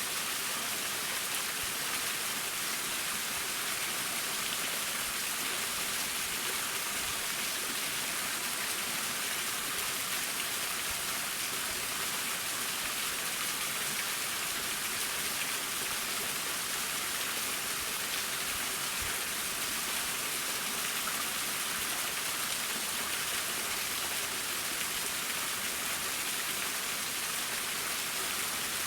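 Mountain waterfall: a steady, unbroken hiss of falling and splashing water, mostly high-pitched.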